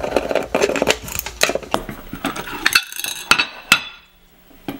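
Hard-drive spindle motor and small metal parts clicking and clinking against the aluminium base as the motor is worked free by hand and lifted out. The clicks come thick and irregular, with a few sharper ones, and stop about four seconds in.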